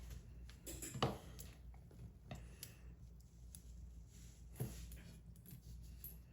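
A few separate sharp metallic clicks and taps from small tools and lock parts as a Kwikset SmartKey cylinder is worked apart, the loudest about a second in, over a low steady hum.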